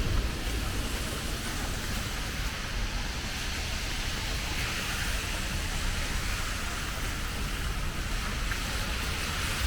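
Steady rain and wet-street hiss over a low rumble.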